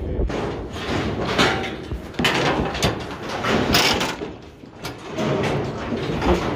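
Steel cattle squeeze chute clanking and rattling, metal bars and gate parts sliding and knocking together in a run of sharp impacts.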